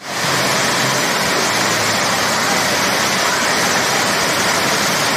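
Heavy rain pouring down in a steady, loud hiss, with a faint low hum in the first two seconds.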